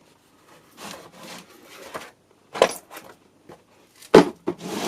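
Tools and a plastic toolbox being handled: a stretch of rubbing and scraping, then a sharp knock a little past four seconds in.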